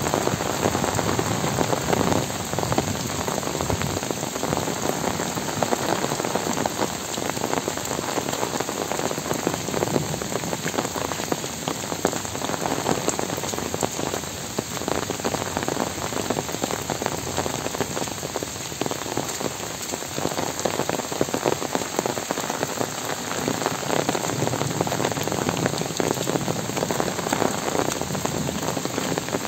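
Heavy rain falling steadily on trees, leaves and waterlogged ground: a dense, even hiss full of close-packed drop patters.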